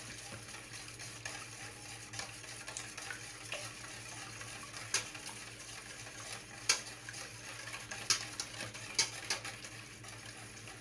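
Wire whisk beating eggs in a stainless steel bowl: a steady swishing, with a handful of sharper clinks as the whisk strikes the bowl's side.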